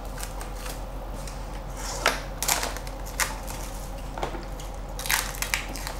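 Plastic cling wrap crinkling and crackling as it is stretched over a glass baking dish and pressed down at the edges, in a string of short crackles, the loudest about two and five seconds in.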